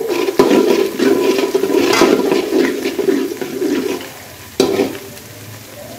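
A metal spatula stirring and scraping onions and cumin seeds frying in oil in an aluminium pot, with the oil sizzling, for about four seconds. This is followed by one sharp knock and a quieter sizzle.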